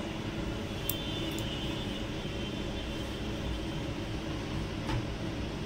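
Steady low rumbling background noise, with a few faint clicks about a second in and again near the end.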